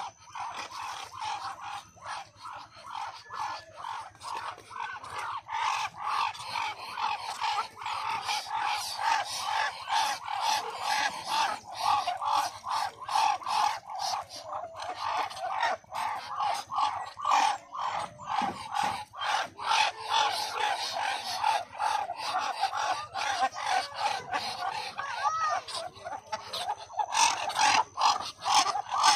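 A flock of Muscovy ducks calling, many short overlapping calls without a pause, growing busier about six seconds in.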